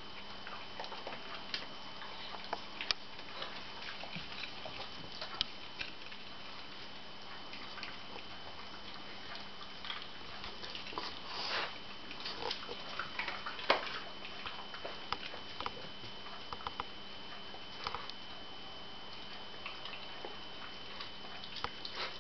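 Dog eating from a stainless steel bowl: irregular wet chewing, licking and sniffing, with scattered short clicks and smacks.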